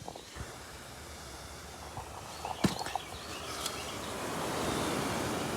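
K-Rain Pro Plus rotor sprinkler throwing water from a 0.75 GPM nozzle: a steady spray hiss that grows louder in the last second or two, with a sharp tap about two and a half seconds in.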